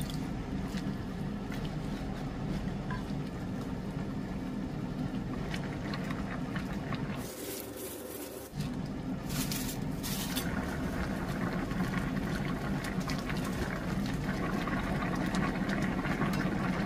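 Water pouring steadily into a pot of shredded mackerel and radish; about seven seconds in it breaks off, and the mackerel soup is then heard boiling in the pot.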